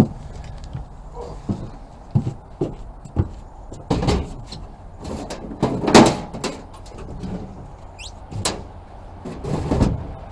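A run of knocks, bumps and scrapes as a heavy deep-cycle battery is set into a metal truck tool box, the loudest bang about six seconds in, with one short squeak near the end, over a steady low hum.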